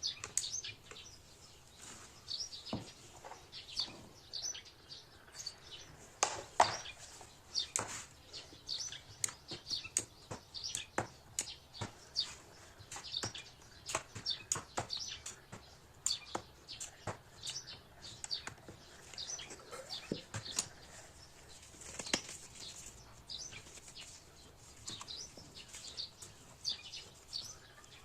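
Small birds chirping in quick, repeated short high notes, mixed with occasional sharp clicks.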